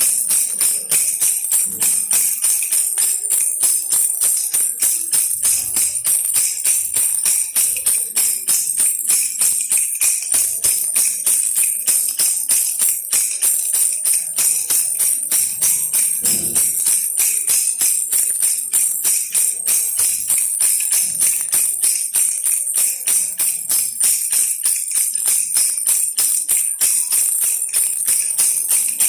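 Baby rattle shaken steadily in quick, even strokes, a continuous high jingling rattle.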